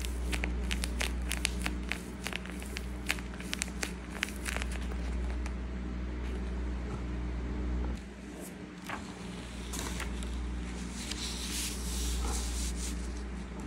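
Tape-covered paper squishies squeezed by hand, crinkling in quick crackles for the first few seconds. Near the end a sheet of paper rustles as it slides across the table. A steady low hum runs underneath.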